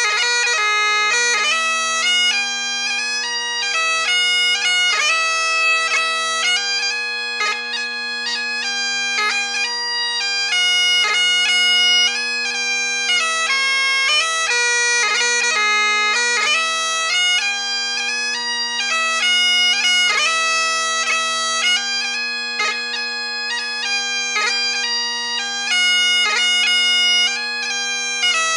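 Great Highland bagpipe playing a 6/8 march tune: the chanter's melody, broken by quick grace-note flourishes, over the steady hum of the drones.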